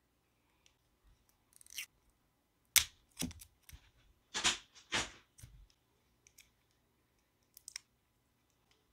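A tight cap being worked on a lip liner pencil: a sharp click, then a loud snap about three seconds in, followed by several short scraping pulls and rubs. A few small clicks come near the end.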